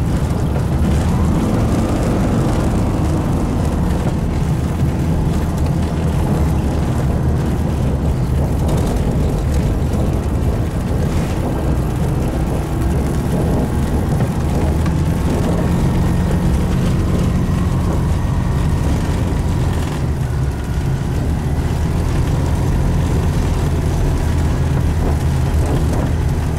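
Light aircraft's piston engine and propeller running at low power while taxiing on a grass airstrip, heard from inside the cockpit as a loud, steady drone.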